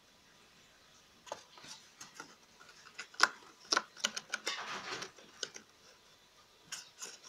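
A lop-eared rabbit gnawing and nosing at cardboard tubes and paper: a string of small, irregular crisp clicks and crunches starting about a second in, with a brief rustle of paper near the middle.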